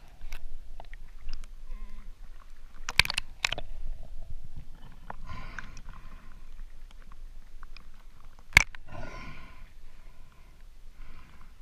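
A snorkeler's muffled breaths through a snorkel, picked up by a camera held in the water, a couple of breaths a few seconds apart. Several sharp clicks or knocks come in between, the loudest about eight and a half seconds in.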